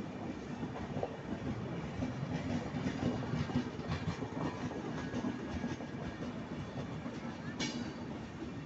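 Passenger coaches of an Indian Railways express (LHB stock) rolling past at trackside: a steady rumble of wheels on rail with clickety-clack over the joints and occasional sharper clanks, one brief sharp clatter near the end.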